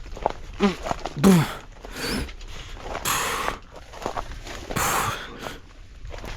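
A man's effortful breathing and short grunts as he pushes through dense mangroves, with rustling and footsteps among the roots.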